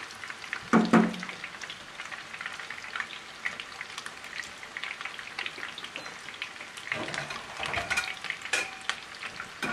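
Bone-in chicken drumettes coated for karaage shallow-frying in a little oil in a frying pan: a steady crackling sizzle of many small pops, as the chicken is nearly cooked through. A short, louder knock comes about a second in.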